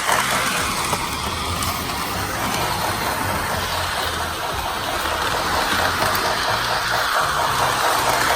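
Small electric motor of a toy train running along metal track: a steady whirring with a rapid, regular clicking.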